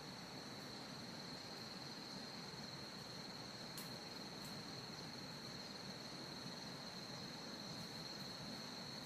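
Forest insects droning steadily at one high pitch over a soft background hiss, with two faint clicks near the middle.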